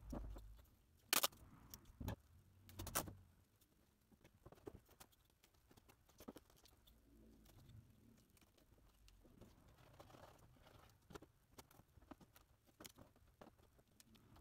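Foam board being handled on a plastic cutting mat: a few sharp knocks in the first three seconds as a wing panel is moved and set down, then faint scattered taps and ticks as pieces are pressed into place.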